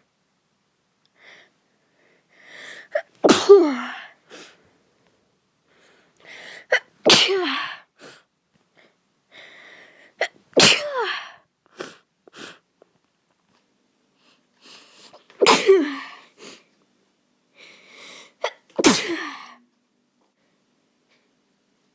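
A person sneezing five times, one every three to five seconds, from a cold. Each sneeze comes after a short catching breath and ends in a voiced cry that falls in pitch.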